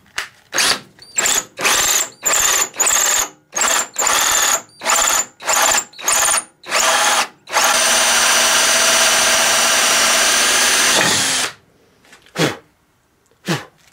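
Cordless drill driving a hole saw through a cedar board. The trigger is pulsed in about ten short bursts, then held for about four seconds of steady running as the saw finishes the cut, stopping suddenly. Near the end there are two brief sounds that fall in pitch.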